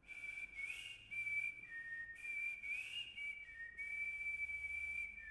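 A person whistling a slow melody of held notes, stepping between a few pitches with small upward slides.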